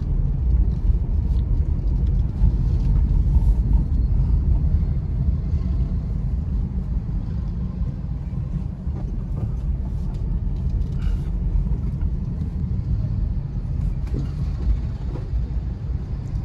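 Car being driven, heard from inside the cabin: a steady low rumble of engine and tyre road noise.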